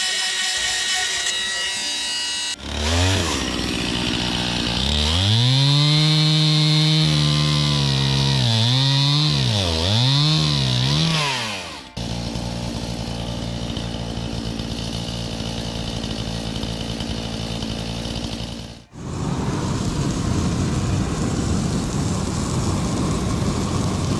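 Two-stroke chainsaw revving up and cutting, its pitch dipping and recovering several times as the chain bites into the log. The sound changes abruptly twice, where one stretch of running saw gives way to another.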